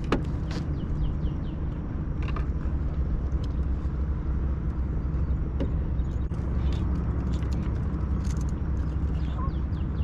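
Steady low engine-like rumble that holds even throughout, with a few faint small ticks over it.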